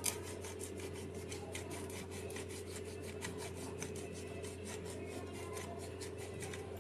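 Hand-twisted pepper grinder grinding over raw chicken: a faint, steady run of quick rasping clicks, about four or five a second.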